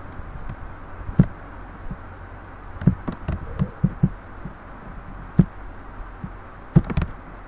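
Computer mouse clicking, about eight soft irregular clicks with a quick run of them around three to four seconds in, over a steady low electrical hum.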